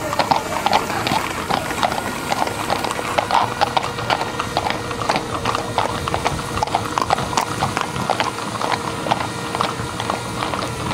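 Hooves of many horses clip-clopping on a paved street: a dense, uneven clatter of hoofbeats from a large group of riders moving together.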